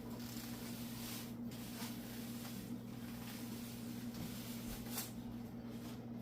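Soft swishing strokes of a hand applicator smearing wet floor sealer across wood, a few seconds apart, over a steady low electrical hum.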